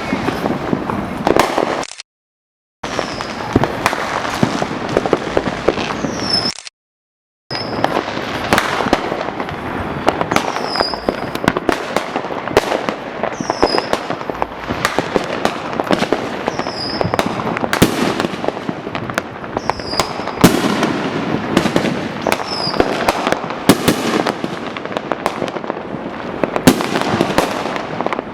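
Fireworks and firecrackers going off all around in a dense, continuous stream of bangs, pops and crackle. The sound cuts out completely twice in the first eight seconds.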